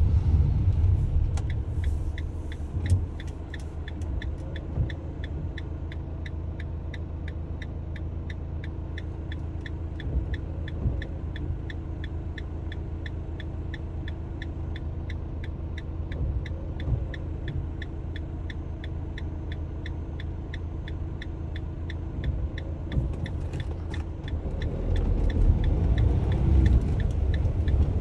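Delivery van's indicator ticking steadily, about two ticks a second, over the low rumble of the engine heard from inside the cabin. The engine noise grows louder near the end.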